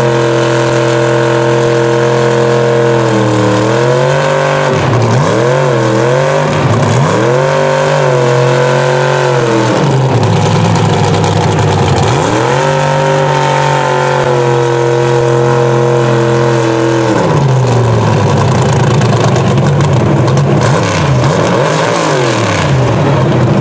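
Big engines of mega mud trucks running loud at a high idle, revved up and back down several times in short blips, with steady spells between.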